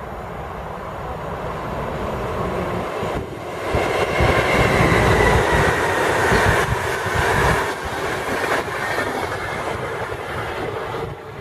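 RegioJet passenger train hauled by a Bombardier Traxx electric locomotive passing through the station at speed, its coaches rumbling and clattering over the rails. The sound builds, is loudest about four seconds in, and eases off toward the end.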